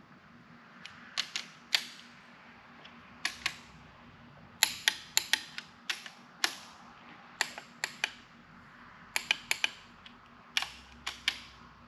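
Click-type torque wrench tightening connecting rod bolts: sharp metallic clicks, some single and some in quick runs of two or three, as the ratchet is swung back and the wrench clicks off at its set torque.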